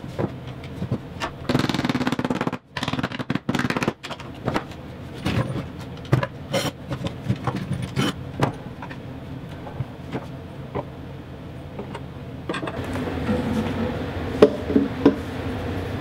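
Plywood drawer box parts and bar clamps being handled on a wooden workbench: a string of knocks, clicks and scrapes as the glued box is set down and the clamp jaws are slid and tightened, with a few louder knocks near the end.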